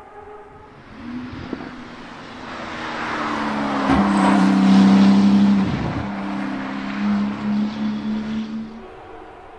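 Porsche 991 GT2 RS's twin-turbo flat-six passing close on track: the engine note builds, is loudest about four to six seconds in, breaks briefly, carries on with a pulsing loudness, and fades as the car pulls away near the end.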